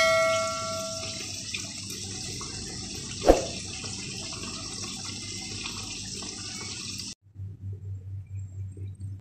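Steady watery hiss of the pan of coconut-milk stew simmering on the stove, with a bright electronic chime ringing out and fading over the first second and a single sharp knock a little past three seconds. The hiss cuts off suddenly about seven seconds in, leaving a low pulsing hum.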